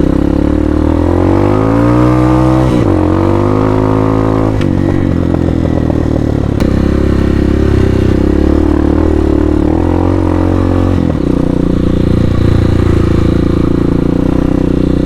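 Hawk 250 dual-sport motorcycle's single-cylinder four-stroke engine under riding load. It revs up, drops at a gear change about three seconds in, revs up again, then holds a steadier speed with another change near the end.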